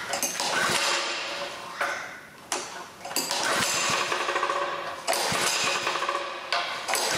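Small Honda petrol engine being pull-started: several hard pulls on the recoil starter crank the engine and the belt-driven car air-conditioning compressor with a rattling clatter. The engine does not catch, and the compressor, with aluminium filings inside it, sounds crunchy.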